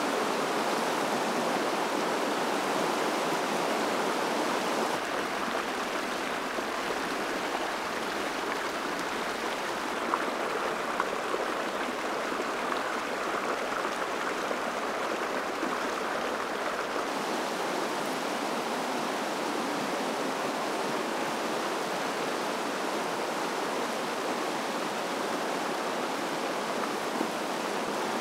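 Creek running: a steady rush of flowing water, its tone shifting slightly about five seconds in and again around seventeen seconds.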